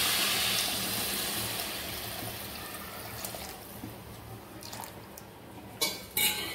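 Warm water poured into a hot steel pot of ghee-roasted rice and peas, splashing and hissing as it hits the pan, the hiss fading away over about three seconds. A few sharp clicks near the end.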